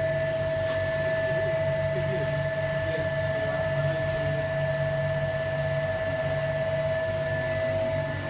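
Steady whine and hum of running lab machinery during vacuum-assisted resin infusion: one strong high tone with a fainter higher one over a low hum, unchanged throughout.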